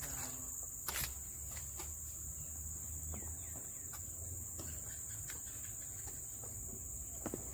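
Steady high-pitched insect chorus, shrill and unbroken, with a couple of short clicks about a second in.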